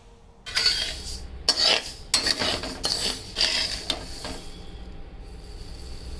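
Rice grains being roasted in a metal wok (kadai), stirred and scooped with a slotted metal spatula: irregular scrapes of the spatula on the pan with the grains rattling, several louder strokes in the first few seconds, then softer scratching.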